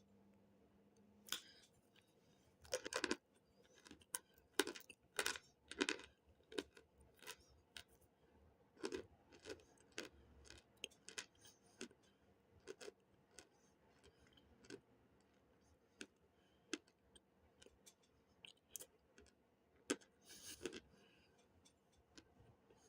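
Crunching bites of baked cornstarch chunks: irregular crisp crunches and clicks, with louder clusters about three seconds in, around five to six seconds, and again near the end.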